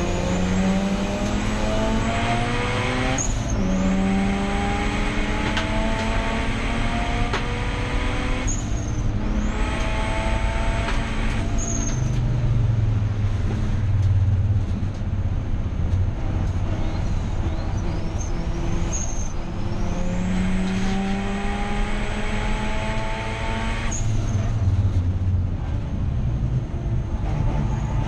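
Mazda RX8 race car's turbocharged 13B rotary engine under hard acceleration, its pitch climbing through the revs and dropping sharply at each of several gear changes. There is a lower, steadier stretch in the middle before it pulls up through the revs again.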